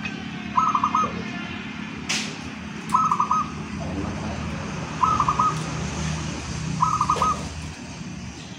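Zebra dove (local Javanese perkutut) cooing its short multi-note song phrase four times, about two seconds apart, each phrase alike.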